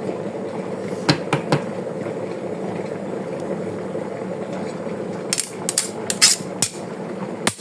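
Steady noise of a pot cooking on the stove, with sharp kitchen knocks: a few about a second in, then a quick run of them between about five and seven seconds, like a utensil striking a pot or a cutting board.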